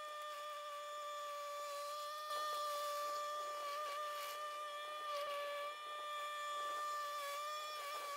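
Ventrac 4500Z compact tractor running with its front rake attachment, a steady high-pitched machine whine that dips briefly a few times as it works the gravel.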